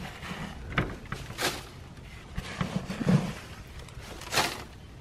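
Pine shavings rustling and scraping as a gloved hand scoops and spreads them into a plastic nest-box tray. There are several short, separate bursts of rustling, a second or so apart.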